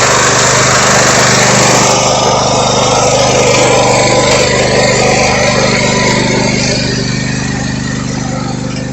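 Riding lawn mower engine running steadily under load, with a wide noisy wash over it that eases off a little near the end.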